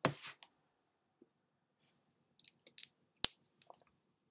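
A stylus tapping and clicking on a tablet's glass screen as a letter is written. There are a few light ticks, then one sharp click about three seconds in, which is the loudest sound. A short breathy hiss comes at the very start.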